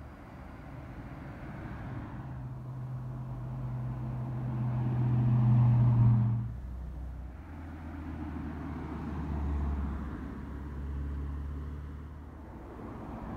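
Classic cars driving past. The loudest is a first-generation Ford Mustang going by close, its engine note growing louder to a peak about six seconds in and then dropping off suddenly. A lower rumble of other passing cars follows.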